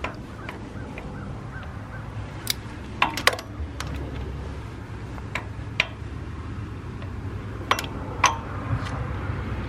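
Sharp metallic clicks of a wrench on the water pump bolts, a few at a time at irregular intervals, as the bolts are torqued to 78 inch-pounds. A steady low hum runs underneath.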